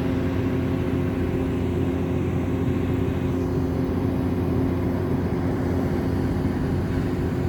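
A steady low mechanical hum with a few constant tones, unchanging throughout.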